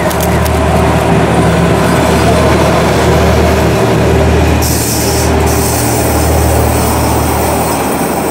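Vintage Bernina Railway electric train, the 1916 locomotive BB 81 hauling old coaches, passing close by: a steady low hum and rolling noise from the wheels on the rails, with a brighter rushing hiss about halfway through as the coaches go by.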